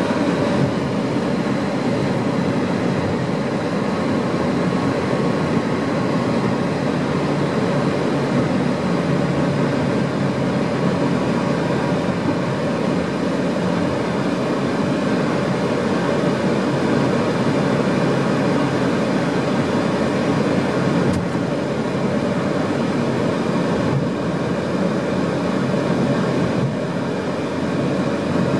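A car driving at a steady speed, heard from inside the cabin: a steady rumble of tyres and engine.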